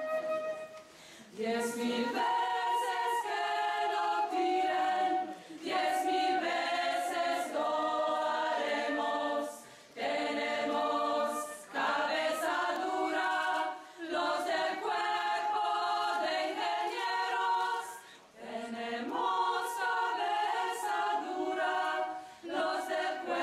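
A choir singing a cappella in phrases of a few seconds each, with short breaths between them.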